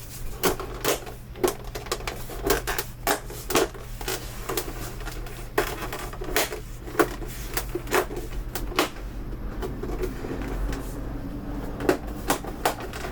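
Plastic casing of a Samsung U32J590UQU monitor being handled and pressed: irregular sharp clicks and knocks as its clips are pushed against their hooks without snapping in, over a low steady hum.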